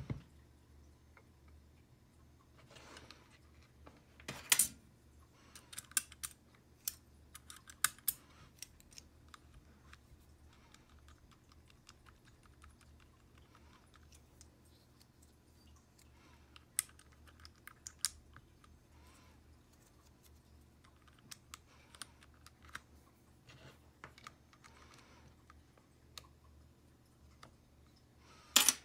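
Scattered, irregular clicks and clacks of a mechanical keyboard with Cherry silent red switches being handled, with keycaps pulled off to expose the switches. The two loudest sharp clacks come about four seconds in and just before the end.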